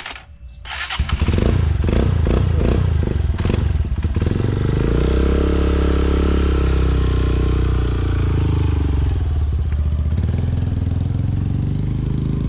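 Dirt bike engine starting about a second in, blipped with several quick throttle pulses, then running steadily with its pitch rising and falling as the bike moves off.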